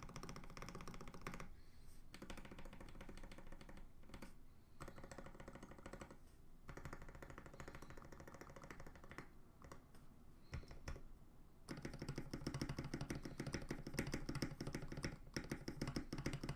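Fast typing on a mechanical keyboard with lubed, filmed linear switches on an FR4 plate, a dense run of soft keystroke clacks in bursts with short pauses, fastest and loudest over the last five seconds.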